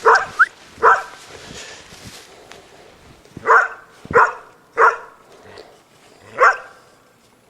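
A dog barking, about seven loud barks: a quick burst of three in the first second, then single barks every half second to two seconds, trailing off near the end.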